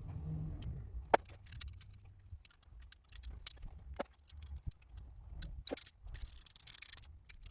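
Small metallic clicks and light rattles of screws and hand tools being handled while the stator screws are set with threadlocker, with a short scraping rustle near the end.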